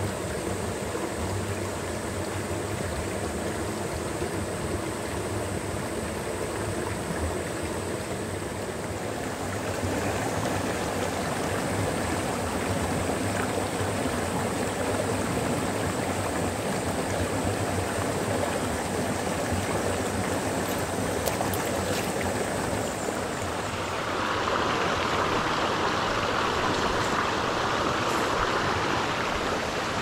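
Water of a small mountain headwater stream rushing and gurgling over rocks in a steady wash, growing a little louder about a third of the way through and louder and brighter again about three-quarters through.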